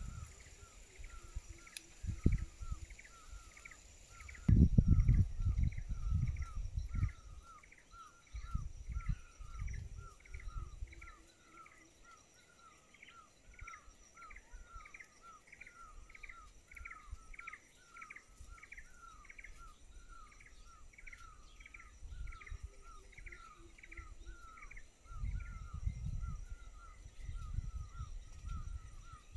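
A steady, repeating chirp from a small forest animal, about three chirps a second and each with a lower and a higher note. Now and then, low rumbles of wind buffet the phone's microphone, the loudest a few seconds in.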